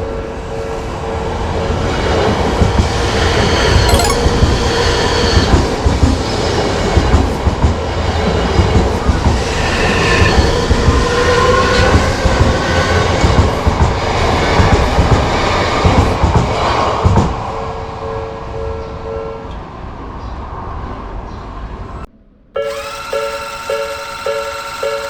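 An electric commuter train passes over a level crossing with loud wheel rumble and clatter, over the two-tone ding of the crossing's electronic alarm bell. The train noise stops about 17 seconds in, leaving the bell ringing alone. After a brief break near the end, another crossing's bell dings steadily, a little under twice a second.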